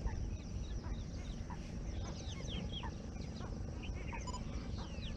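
A chorus of many water birds calling: short, high notes that slide downward, several a second and overlapping, over a steady low rumble.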